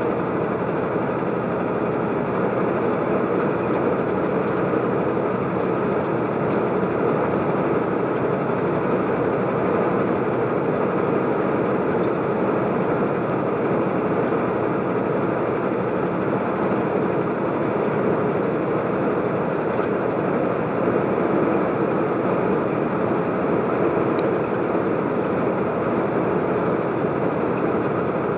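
Steady road noise from inside a truck cruising at highway speed: an even engine drone mixed with tyre noise, holding the same level throughout with no change in speed or load.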